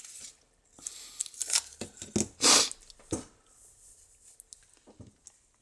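A printed circuit board being handled and turned over on a work mat: light knocks and rustling, with a louder rasping, tearing-like scrape about two and a half seconds in, then a few faint ticks.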